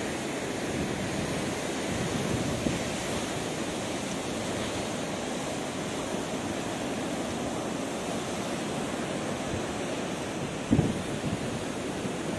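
Steady rush of wind and rough surf on a cyclone-whipped sea, with wind blowing across the microphone. A single brief low thump near the end.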